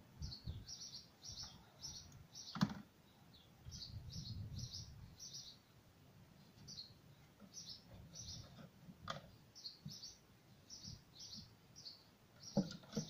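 Small birds chirping repeatedly in short, high notes. Under them come light knocks and clicks of a plastic container and tools being handled, the sharpest about two and a half seconds in and a couple more near the end.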